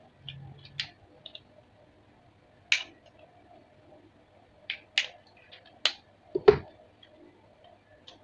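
Plastic trigger-sprayer head clicking and tapping as it is handled and probed with a thin metal pin: about half a dozen sharp, separate clicks at irregular intervals, the loudest a little past the middle.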